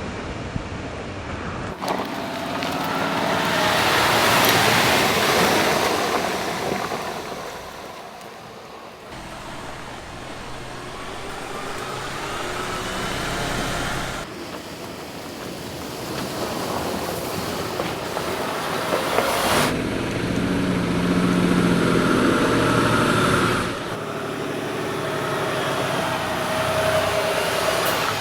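Mercedes-Benz Arocs truck's diesel engine running under load on rough ground, its pitch slowly rising and falling with the throttle. The sound changes abruptly several times as one shot gives way to the next.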